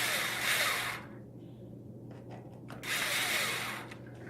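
Cordless power screwdriver spinning in two short runs of about a second each, driving M4 chassis screws; its pitch falls as each run winds down.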